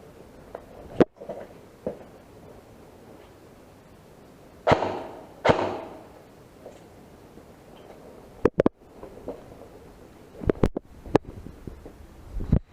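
Airsoft guns firing single shots: about ten sharp cracks at irregular intervals, the two loudest near the middle trailing off in a short hiss.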